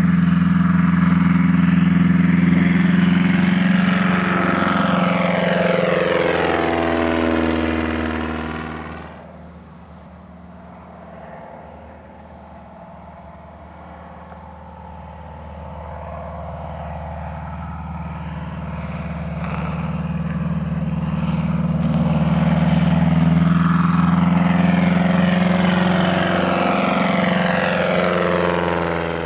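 Single-engine light aircraft's piston engine and propeller during low passes: a loud steady drone whose pitch falls as the plane goes by about eight seconds in. It then fades to a quieter drone and grows loud again, falling in pitch a second time near the end as it passes once more.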